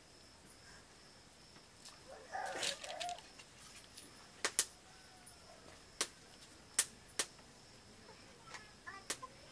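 Sharp, brief clinks of steel plates and bowls handled during a meal, scattered mostly through the second half, with a short call about two and a half seconds in and a faint steady high hum behind.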